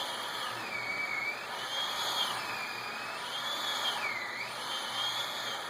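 Electric chainsaw running and cutting into wood, its high motor whine dipping in pitch again and again as the chain bites and bogs under load.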